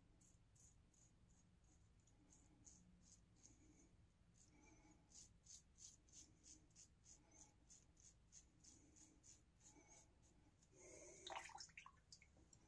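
Faint, quick scraping of a three-piece safety razor cutting through lathered neck stubble in short strokes, about three a second. A brief louder sound comes near the end.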